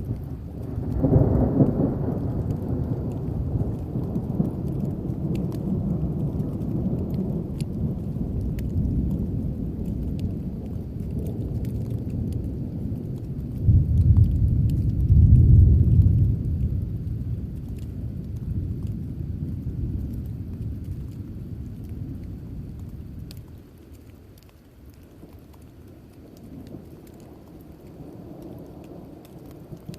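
Thunder rumbling: a long, deep roll that swells about a second in, peaks again in a louder second roll midway through, then dies away well before the end.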